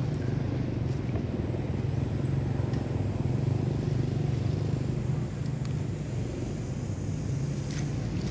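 Steady low engine hum, with a thin high whine for a second or two starting about two seconds in.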